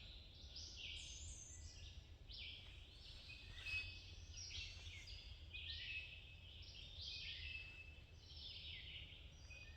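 Songbirds singing in woodland: a faint, continuous chorus of short high chirps and whistled notes from several birds overlapping.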